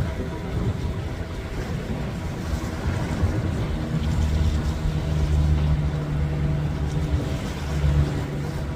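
A motorboat's engine drones steadily, growing stronger about halfway through and easing near the end, over a rush of wind and water.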